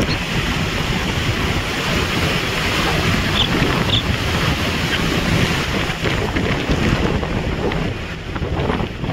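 Strong wind rushing and buffeting over a phone microphone held out of the side window of a moving pickup truck, over steady road noise.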